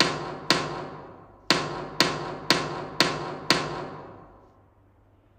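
A rhythm exercise of quarter notes and quarter rests played as sharp percussive strikes at two beats a second: two strikes, a one-beat rest, then five strikes. Each strike rings briefly, and the sound fades out after the last one.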